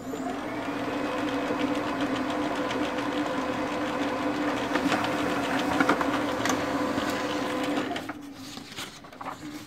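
Lexmark MS510 laser printer printing a demo page: its feed motor and rollers start up at once and run steadily with a low hum and faint clicking as the sheet feeds through and is ejected, then wind down about eight seconds in.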